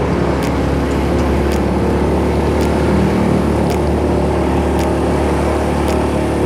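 Motorcycle engine running steadily while riding, with wind and road noise and a faint regular tick about once a second.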